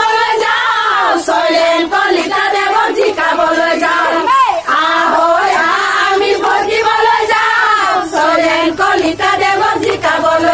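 A group of women chanting election slogans together in unison, in repeated short sing-song phrases.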